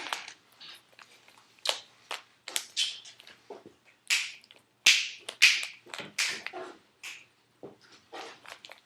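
Plastic Rubik's Cube being twisted by hand: an uneven run of sharp clacks and short scraping rasps as the layers turn, a few of them loud.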